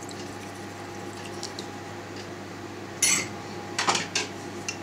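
A metal spoon clinks sharply against a stainless steel cheese pan about three seconds in, with a few lighter clicks near the end, over a steady low hum.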